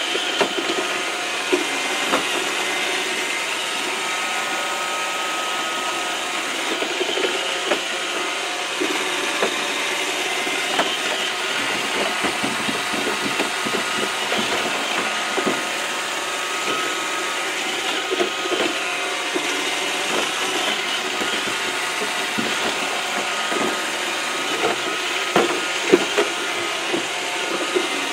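iRobot Roomba robot vacuum running steadily, its motor and brushes whirring, with scattered knocks as it bumps around inside the trap that confines it. Several louder knocks come near the end.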